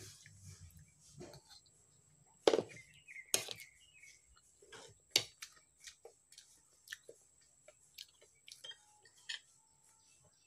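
Eating sounds: a metal spoon clinking and scraping on plates in scattered taps, the loudest about two and a half seconds in, with chewing in between.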